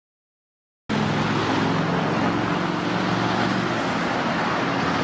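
Steady vehicle noise, a loud rushing sound with a low engine hum underneath, starting abruptly about a second in.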